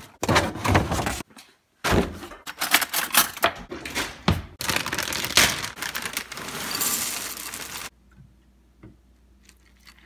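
Plastic cereal bag crinkling and crackling as it is handled, then dry marshmallow cereal poured into a ceramic bowl with a dense rattle for about three seconds, stopping two seconds before the end.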